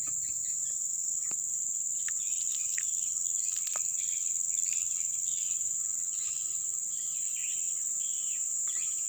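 Steady high-pitched drone of insects, with short chirps scattered through it.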